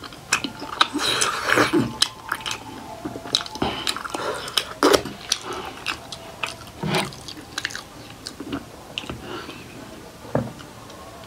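Close-miked eating sounds of steamed buffalo-meat momos being chewed: wet lip smacks, tongue clicks and chewing, with a hissy sucking stretch about a second in. Near the end comes a gulp as water is drunk from a glass.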